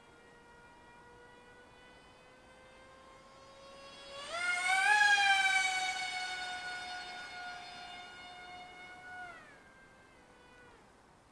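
Electric motor and propeller of a Z84 RC flying wing in flight, a whine that creeps up in pitch and then jumps higher and much louder about four seconds in. It holds a steady high note while slowly fading, then drops in pitch and dies away about nine seconds in.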